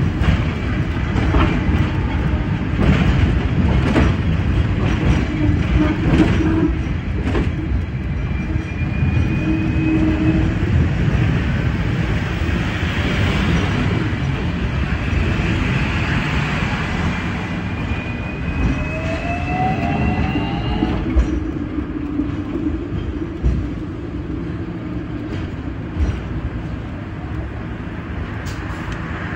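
Hong Kong double-deck electric tram with an AC drive running along street track: a steady rumble of the wheels with clicks over rail joints, and a rising electric whine from the drive a few times as it picks up speed, easing off near the end.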